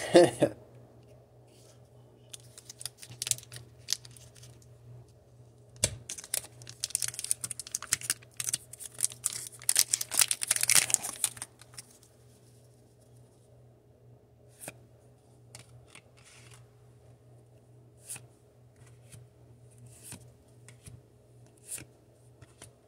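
A Pokémon booster pack's foil wrapper crinkling and tearing as it is opened, densest from about six to eleven seconds in, followed by the cards being flicked through one by one in sparse soft clicks. A brief loud rustle against the phone right at the start.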